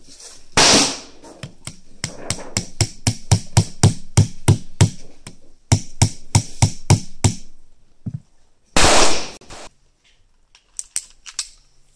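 Metal-on-metal taps and clicks from loading a Pietta Colt 1851 snubnose black-powder revolver, coming regularly about three a second for several seconds. Two loud bangs cut in, one just after the start and one about nine seconds in.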